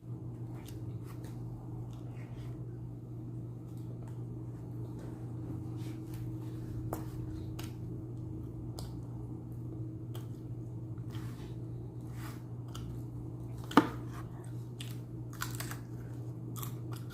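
Close mouth sounds of eating a chicken shawarma wrap with fresh vegetables: biting, crunching and chewing, with many short crisp clicks. A steady low hum runs underneath, and one sharp loud click comes near the end.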